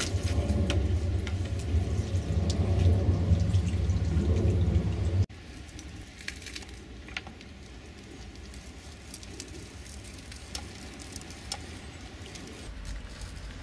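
Miniature live-steam traction engine running, with a low rumble for about the first five seconds. The sound then drops off suddenly to a quieter steady hiss of steam with scattered small ticks.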